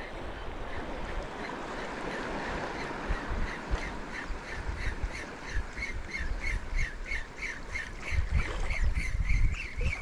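Shimano Sienna C3000 spinning reel being cranked on a lure retrieve, squeaking in a steady rhythm of about four short squeaks a second, over lapping water and wind.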